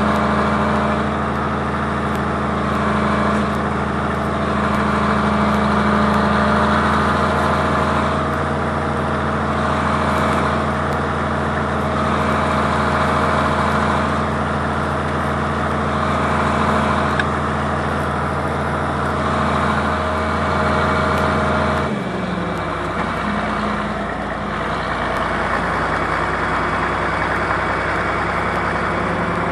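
Tractor engine running steadily while pulling a disc harrow through the field. About two-thirds of the way through, the engine note drops lower and settles there.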